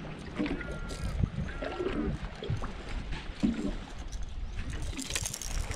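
Boat sitting on river water: a steady low rumble of wind and water against the hull, with faint murmured voices and a few short high whistled notes in the first two seconds.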